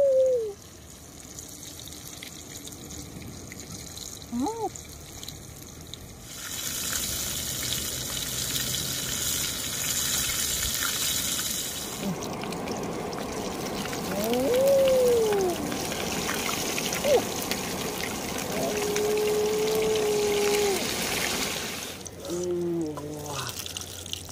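A whole fish deep-frying in hot oil in an iron wok over a wood fire: a steady sizzle that starts about a quarter of the way in and grows louder around the middle. A few short whistle-like calls rise and fall over it.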